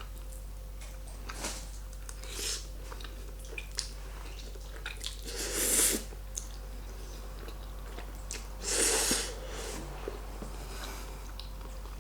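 Close-miked chewing and mouth sounds of someone eating carbonara pasta: small wet clicks throughout, with two louder, longer noisy mouth sounds, one about halfway through and one near three-quarters of the way.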